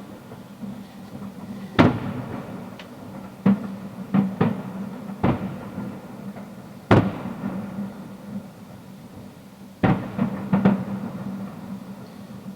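Fireworks shells bursting in a display, about eight sharp bangs spaced a second or two apart with a quick run of three near the end, each followed by a short echo.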